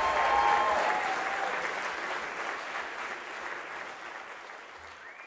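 Concert audience applauding, with a few high calls from the crowd in the first second or so. The applause fades steadily away toward the end.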